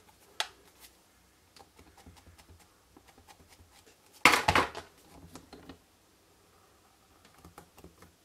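Stamparatus clear plastic hinged plate and stamping gear being handled: scattered light clicks and taps of plastic, with one louder clatter about four seconds in.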